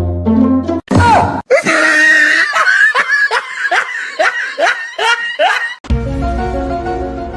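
Background music with a plucked bass line, cut off about a second in by a rapid series of short repeated cries, about two and a half a second, which sound like laughing. The music comes back near the end.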